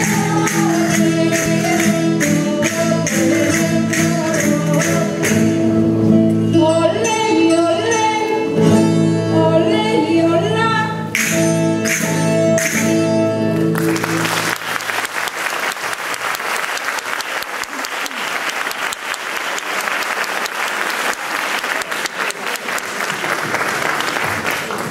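Live Valencian folk music from a plucked-string band with singing and sharp percussive strokes; the tune ends a little past halfway. Audience applause follows and fades near the end.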